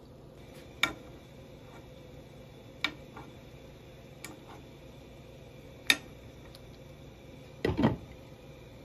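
A metal spoon clicking against a stone-coated pan a few times over a low steady hum, then a glass lid set down onto the pan with a louder clatter near the end.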